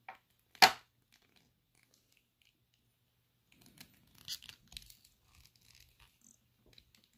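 Swapping the plastic head on a Hasbro Lightning Collection Red Ranger action figure: one sharp snap on the neck peg about half a second in, then quieter plastic clicking and scratching about four to five seconds in as the head is worked into place.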